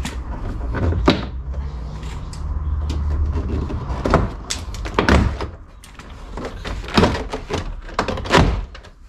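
Plastic retaining clips of an Audi A5's interior door card popping loose as the panel is pried off the door from a corner, several sharp snaps spread over the few seconds, with dull handling knocks of the panel.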